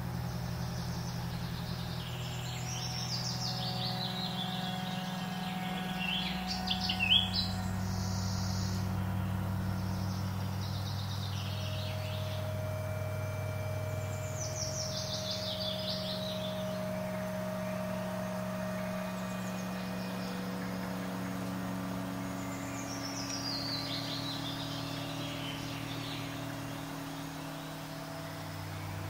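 Ambient fantasy soundscape: low sustained drone chords that shift slowly, with bird calls over them in four bouts of high descending chirps. The loudest moment is a quick burst of calls about seven seconds in.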